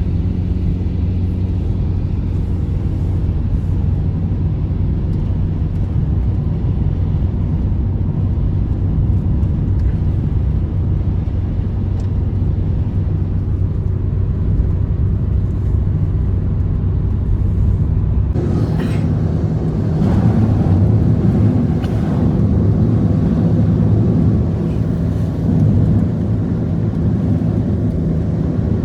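An engine running steadily with a low, even hum; about 18 seconds in it gets rougher and louder.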